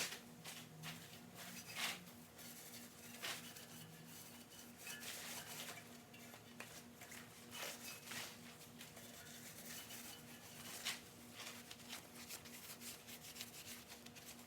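Faint, scattered metal clinks and scrapes of hand tools and engine parts being handled.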